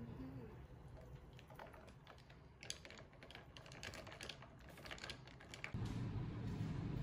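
Ice cubes clinking against the glass as an iced matcha latte is stirred with a straw: a run of light, quick clicks. A little before the end a louder low, steady rumble of room noise comes in.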